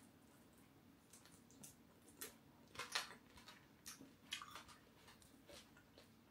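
Faint crunching of crispy fried catfish belly being chewed, a handful of soft crackles spaced irregularly, the loudest about three seconds in.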